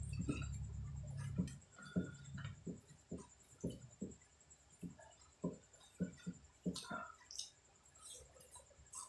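Close-miked eating: wet chewing in short, regular strokes about two a second, after a low steady rumble over the first couple of seconds.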